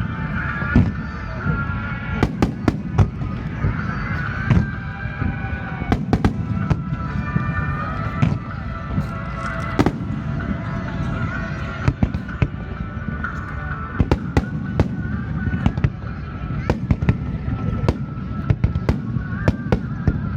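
Aerial fireworks display: a rapid, irregular series of sharp bangs and crackles over a continuous low rumble of bursting shells, with wavering higher tones running through it.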